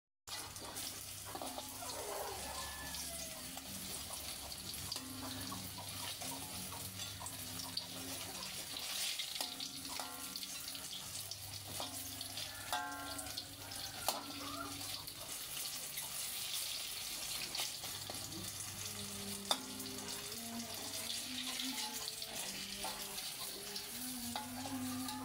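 Banana pieces for pisang goreng frying in a little oil in a wok, a steady sizzle.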